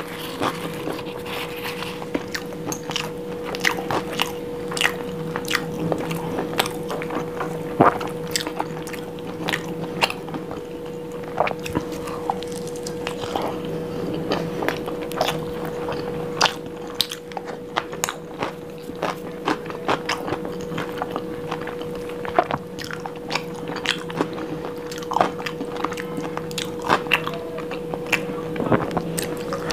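Close-miked chewing and biting of paratha flatbread dipped in curry, with frequent short, sharp wet mouth clicks and smacks throughout. A faint steady hum runs underneath.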